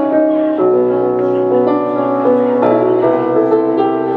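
Instrumental break in a musical-theatre song, with piano-led accompaniment playing sustained chords that change about every half second and no singing.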